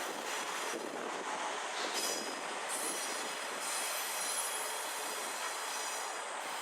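Train running on the rails with a steady rush of rolling noise and a high, multi-toned wheel squeal that sets in about two seconds in and continues.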